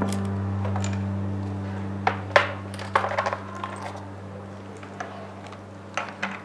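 A few sharp knocks and light clatter of wooden picture frames being lifted off a wall and handled, over a low steady hum that slowly fades.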